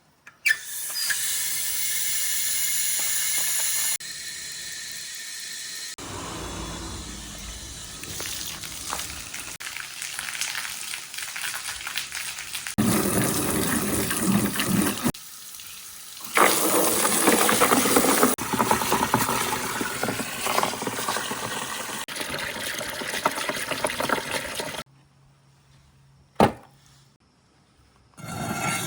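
Many glass marbles rolling and clattering through a marble-run track in a steady rushing stream. The sound comes in several blocks that start and stop abruptly. Near the end it falls almost silent, broken by a single sharp click.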